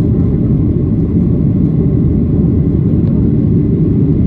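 Steady low rumble of a jet airliner's engines and airflow heard from inside the passenger cabin during takeoff.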